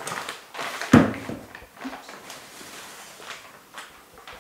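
Plastic film rustling and crackling as a long peat core in its tray is handled on a lab bench. One sharp knock comes about a second in, then smaller knocks and rustles.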